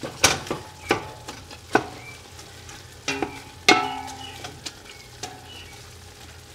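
Ground beef and sausage sizzling as they brown in a large stainless steel stockpot, with a plastic meat chopper scraping through the meat and knocking against the pot. The knocks are sharp and irregular, and a couple near the middle leave the pot ringing briefly.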